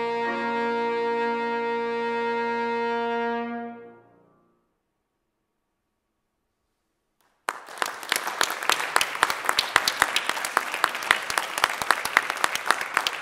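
Trombone and piano hold the final note of the piece, which dies away about four seconds in. After about three seconds of silence, an audience starts applauding and keeps clapping.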